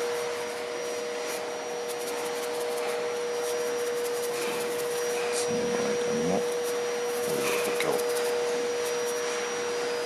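Soft, intermittent rubbing of a hand-held wooden fork, over a steady machine-like hum with two steady tones.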